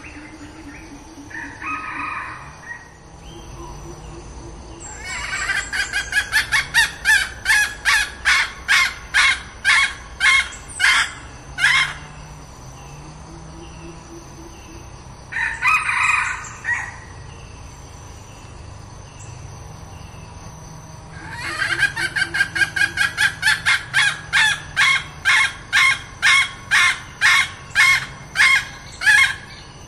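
Red junglefowl hen cackling: two long runs of sharp repeated notes, about two a second and each lasting several seconds, with a shorter call of about a second before each run.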